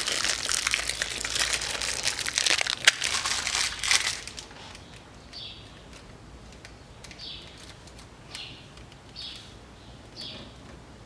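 Plastic packaging crinkling and rustling for the first four seconds or so, as new oil seals are handled, then much quieter with faint bird chirps about once a second.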